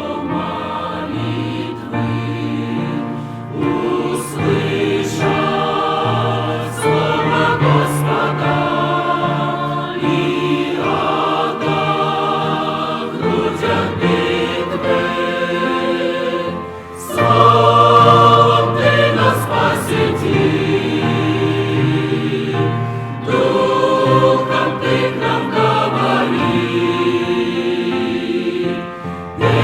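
A choir singing a hymn in held, phrase-by-phrase lines.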